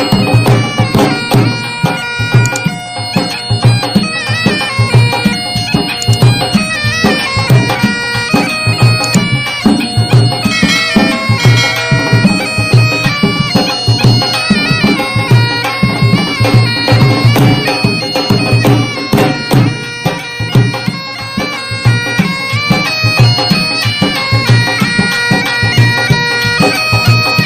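Music: a wind-instrument melody of long held notes with wavering ornaments over a steady drum beat.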